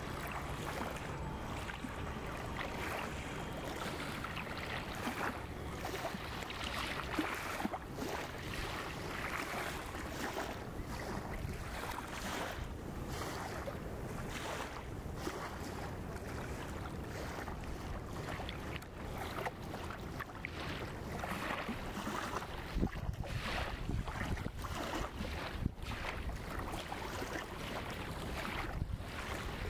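Wind buffeting the microphone: a steady rushing noise broken by frequent brief gusts and thumps, with a low rumble underneath.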